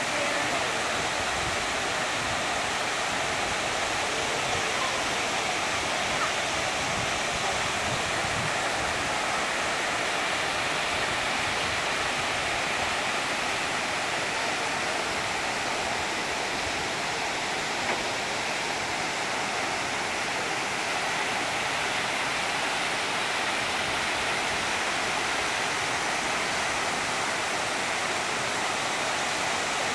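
Steady rush of several thin waterfalls spilling over a rock ledge into a lake, an even hiss of falling water that does not change.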